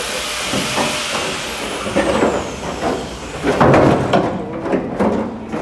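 A hiss that dies away in the first second, with a thin whine falling in pitch, then irregular clattering, knocking and scraping of sheet steel as the cut-off rear quarter section of a Toyota GT86 body shell is pulled free and lifted away.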